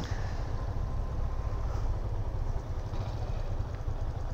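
Yamaha XTZ Crosser 150's single-cylinder engine running on a ride, with low wind buffeting on the microphone.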